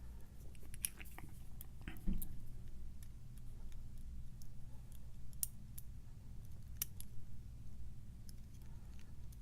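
Small, sharp metallic clicks and ticks, irregular and a dozen or so, as tweezers pick pins out of an American 1100 padlock's plug, over a faint low steady hum.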